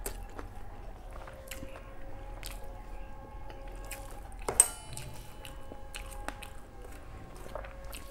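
A person eating rice and curry by hand: soft squishing of food being mixed and chewed, with scattered small clicks and one sharp, loud click about halfway through.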